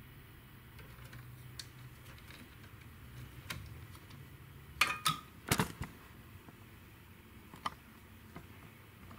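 Plastic power-cable connectors and cables being handled and pushed into place inside an open desktop PC case: a few scattered clicks, with a sharper cluster of clicks about five seconds in.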